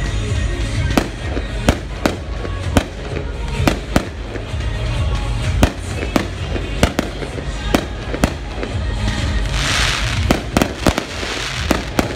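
Aerial firework shells bursting in quick, irregular succession, a sharp bang every half second or so, with music playing underneath.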